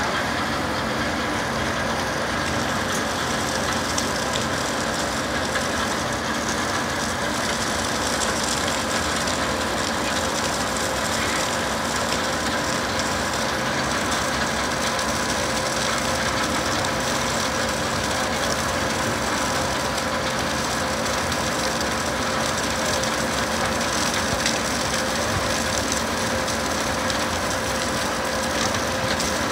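Belt conveyor running steadily: a constant machine hum with a fixed whine from its drive, and crushed stone pouring off the head end of the belt.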